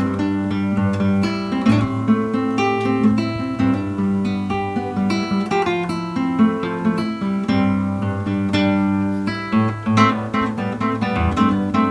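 Solo classical guitar playing a composed piece: a continuous flow of plucked melody notes over held bass notes.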